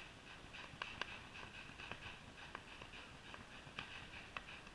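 Distant fireworks popping faintly, a handful of sharp cracks spread through, over a steady rapid pulsing about four or five times a second.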